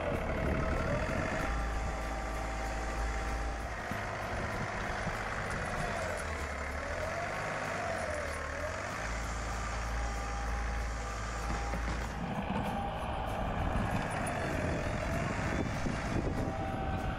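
Compact diesel tractor with a front loader running while it pushes snow, its engine steady underneath and a whine that rises and falls in pitch several times as the tractor moves back and forth.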